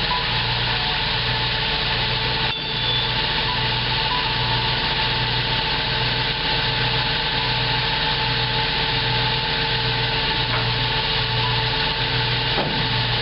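Hydraulic scissor hoist of a 1998 GMC C6500 dump truck running steadily under load as it raises the dump body, with the truck's engine running. A low throb pulses a little faster than once a second under a steady mechanical whir.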